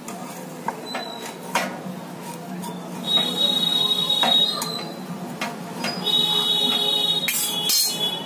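Light taps of a spatula against a non-stick pan, then a high, steady whistling tone sounds twice: once for about a second and a half, and again for about two seconds near the end.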